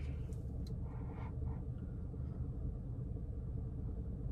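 Steady low hum inside a parked car's cabin, with a few faint soft handling sounds about a second in as a drink is lifted to sip.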